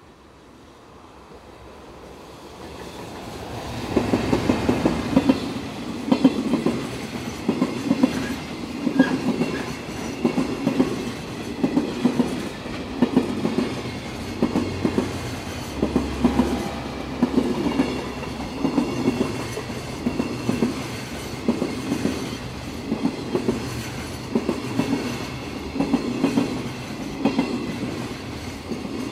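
Container freight train hauled by an electric locomotive approaching, growing louder over the first few seconds, then passing close by. The wagons' wheels clatter over the rail joints in a steady clickety-clack rhythm, about once a second.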